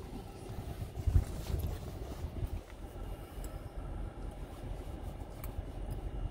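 Low, steady road and engine rumble inside a moving Honda minivan's cabin, with a couple of dull knocks about a second in.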